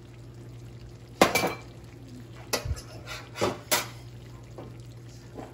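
A metal fork clinking and knocking against dishes, about five sharp clinks, the loudest about a second in, as it is used on the serving bowl and laid down on the stovetop.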